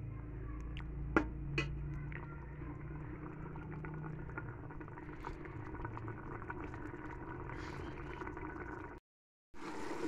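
Potato-and-mince curry simmering and bubbling in an open pressure-cooker pot on the stove, over a steady low rumble. A steel ladle taps against the pot a few times about a second in, and the sound drops out briefly near the end.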